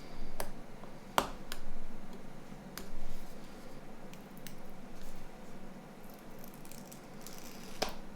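Small sharp clicks and taps of plastic mobile-phone parts being handled and fitted together, with a soft scratchy rustle near the end.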